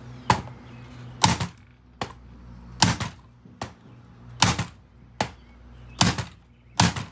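Hammer blows on the hard plastic of a Dyson ball upright vacuum near its cleaner head: about nine sharp strikes, evenly spaced a little under a second apart.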